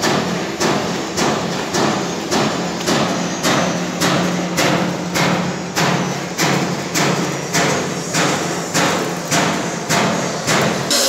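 Regular knocking, a little under two strikes a second, each strike fading before the next, over a steady low hum.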